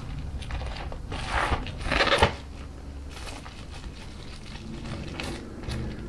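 Scissors cutting through bubble wrap, with plastic crinkling: two louder cutting strokes about one and two seconds in, the second ending in a sharp snip, then faint crinkles and clicks.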